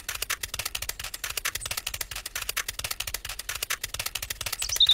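Cartoon footsteps sound effect for small scurrying figures: a quick, even run of light clicking taps, roughly eight to ten a second.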